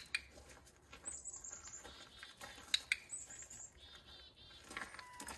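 A small songbird singing short, very high trills that repeat every couple of seconds, with a few sharp clicks among them.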